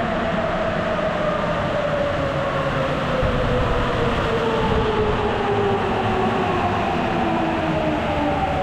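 Train running, with a steady rumble and a whine that falls slowly and steadily in pitch.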